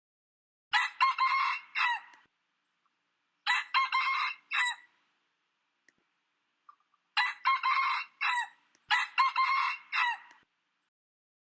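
Sri Lanka junglefowl crowing four times, each crow a short run of several clipped notes.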